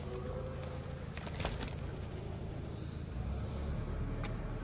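Steady low rumble of workshop background noise, with a few light clicks and knocks scattered through it.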